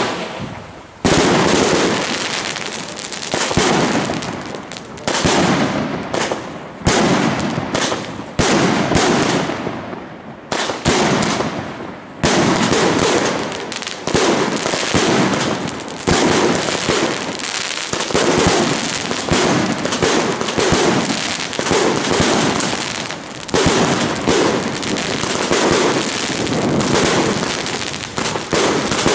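A 49-shot 1.2-inch firework cake firing shot after shot in quick succession, each shot a sharp bang with a fading tail, some louder salutes among them, and a few short lulls between volleys.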